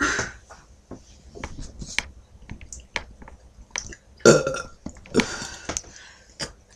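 A person deliberately forcing out a burp: a loud, short belch a little over four seconds in, preceded by a few small clicks and followed by a smaller burst about a second later.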